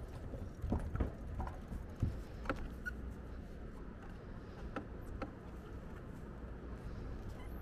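Bicycle rolling along a path: low rumble of wind and tyres on the microphone, with scattered clicks and knocks, most of them in the first few seconds.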